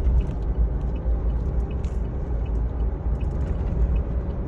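Steady low rumble of a vehicle running, with faint scattered clicks.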